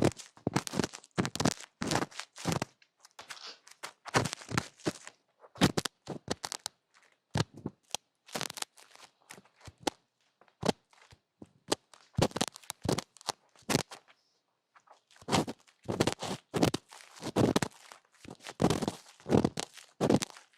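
ASMR trigger sounds close to a microphone: irregular taps, clicks and rustles, with a short pause a little past the middle.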